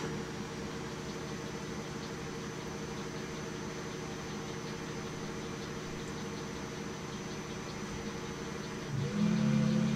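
Small metal lathe running with its chuck spinning: a steady motor and gear hum. About nine seconds in, a louder, lower drone joins it.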